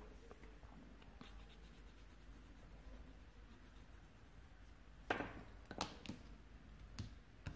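Faint scratching of a coloured pencil on paper during colouring. About five seconds in come a few sharp clicks and rustles as pencils and the paper sheet are handled.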